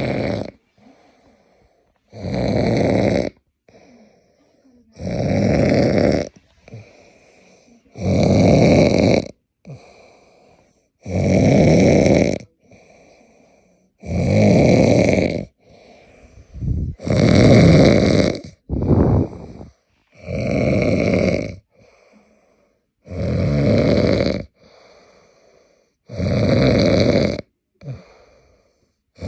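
A sleeping man snoring, one long rough snore about every three seconds in a steady rhythm, with faint breathing between snores.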